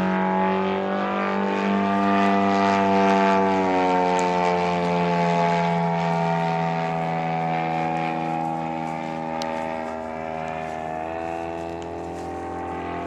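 Engine and propeller of a giant 45%-scale Decathlon RC airplane running steadily in flight. Its note rises a little twice, and the sound grows fainter over the last few seconds as the plane moves away.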